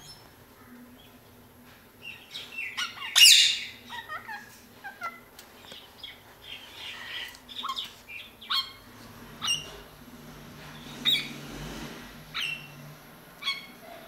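Pet parakeets calling: one loud screech about three seconds in, a quick run of short chirps and squawks after it, then sharp single calls about once a second.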